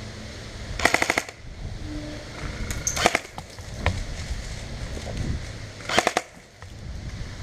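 Airsoft electric rifle firing three short bursts on full auto, each a rapid rattle of clicks at roughly fifteen to twenty shots a second: one about a second in, one about three seconds in, one near six seconds. Wind noise rumbles on the microphone in between.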